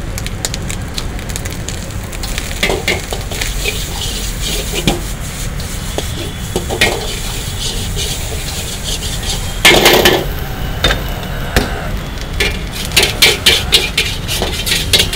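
Long metal spatula scraping and clattering against a large wok as rice and noodles are stir-fried, over the steady sizzle of the frying. There is a louder burst of scraping about ten seconds in, and quicker scrapes near the end.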